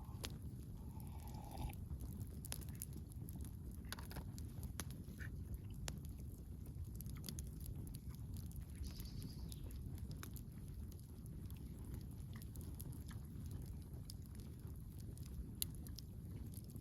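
Campfire crackling: irregular sharp pops and snaps over a low, steady rumble.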